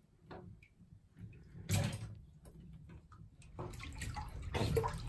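Bathwater splashing lightly as a toddler moves her hands in the tub: short, scattered splashes, one louder a little under two seconds in.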